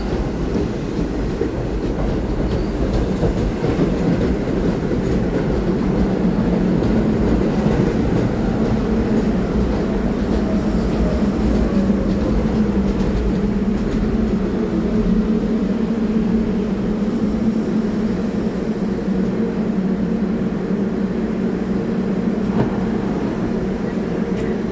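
R44 subway train pulling into the station and slowing to a stop, with a continuous rumble of wheels and running gear. A faint falling whine comes as it slows about halfway through, and a steady low hum carries on once the cars stand.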